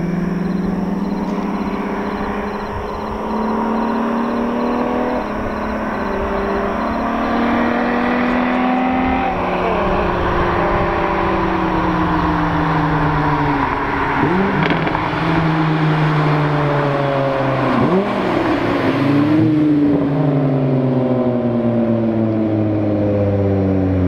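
Volkswagen 12-valve VR6 engine pulling hard through the gears: its pitch climbs, dips briefly at each of a few shifts, then falls steadily as the car eases off near the end.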